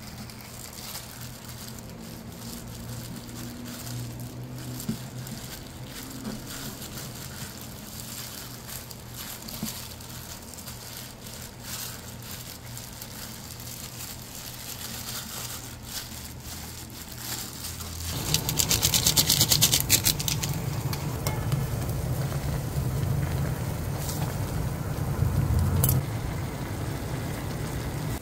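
Plastic-gloved hands pressing and rolling gimbap on a sheet of seaweed, with soft crinkling and rustling over a low steady hum. About eighteen seconds in it gives way to a louder pot of ramen cooking, a steady bubbling hiss with a low rumble.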